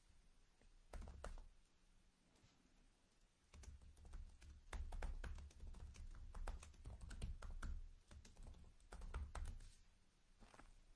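Faint clicking and tapping of computer keys, a couple of clicks about a second in and then a denser irregular run for several seconds, with dull knocks underneath.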